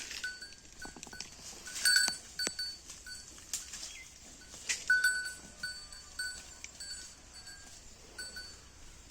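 Holstein Friesian cow grazing: a small neck bell clinks in short, same-pitched rings every fraction of a second as it moves, over sharp crunches of grass being torn and chewed.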